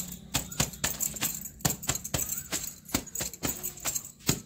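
A hand-held scrub brush scrubbing a wet garment on a paved floor in quick, irregular strokes, with metal and glass bangles jingling on the scrubbing wrist.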